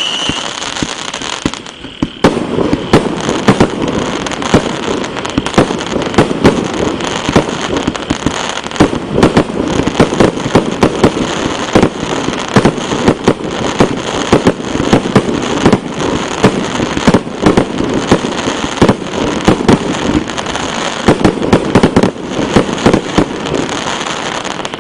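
Multi-shot consumer fireworks cake (the 120-shot Pirobabki battery) firing a dense, rapid barrage: continuous popping with frequent loud bangs, dying away at the very end.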